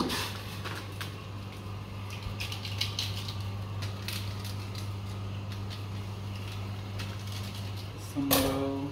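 Foil and plastic seasoning sachets crinkling and being snipped open with kitchen scissors, a scatter of short crackles and clicks, over a steady low hum.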